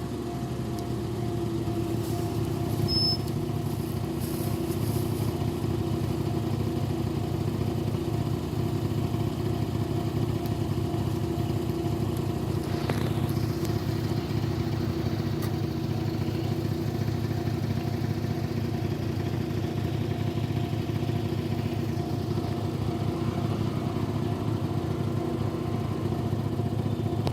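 A motor vehicle engine running steadily at idle: a low, even hum that holds one pitch throughout, with no revving.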